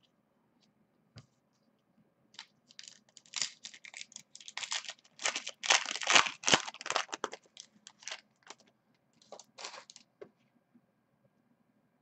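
Foil wrapper of a Bowman Platinum baseball card pack being torn open and crinkled by hand: a run of crackly rustles that starts a couple of seconds in, is loudest midway and dies away near the end.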